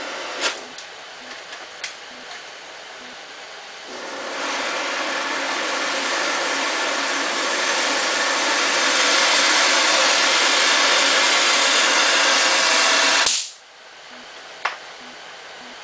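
Oxy-acetylene flame on a Harris automatic torch handle with a welding tip, hissing: a softer acetylene-only hiss at first, then, from about four seconds in, the hiss swells gradually to a loud, steady rush as the oxygen is opened up and the flame adjusted. Near the end it cuts off suddenly as the handle's automatic on/off lever shuts off the gas, leaving only a faint hiss.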